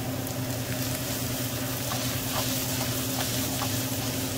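Diced onion, celery and carrot sizzling in hot vegetable oil in a frying pan, with a few faint crackles, over a steady low hum.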